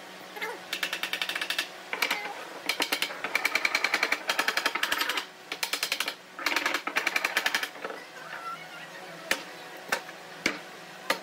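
Claw hammer tapping on pine boards in rapid runs of light, sharp taps, about a dozen a second, in several bursts, then a few single knocks near the end.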